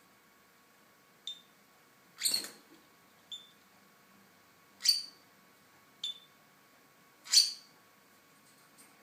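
Small pet parrots, a Fischer's lovebird and a budgerigar, calling: six short, shrill calls about a second apart. Three thin chirps alternate with three louder, harsher squawks.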